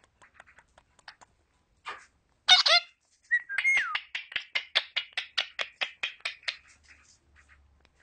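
Indian ringneck parakeets vocalising: a short harsh call, then a whistled note gliding downward, then a fast chattering run of short clicky notes, about six a second, that fades out.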